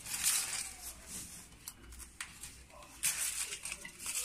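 Release paper being peeled off a self-adhesive PVC sticker film, rustling and crinkling in irregular bursts as the strips are pulled and handled, with a few sharp clicks.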